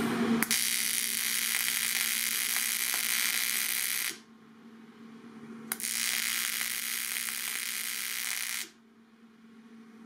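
Stick welder arc on aluminum: a steady hissing arc that burns for about three and a half seconds, stops, then burns again for about three seconds and stops, with a faint low hum beneath.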